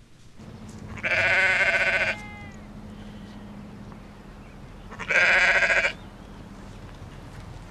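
A ewe in labour bleating loudly twice. The first call is about a second long and trails off falling in pitch; the second, about five seconds in, is a little shorter.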